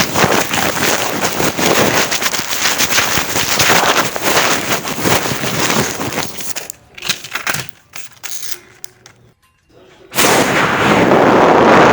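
A person making crash and explosion noises with their mouth: a long, loud, crackling hiss for about six seconds, a few scattered clicks, then a second loud hissing burst near the end.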